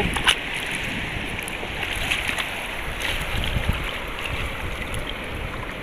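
Shallow seawater surging and sloshing over the rocks at the shoreline, a steady rushing noise, with wind rumbling on the microphone and a sharp click just after the start.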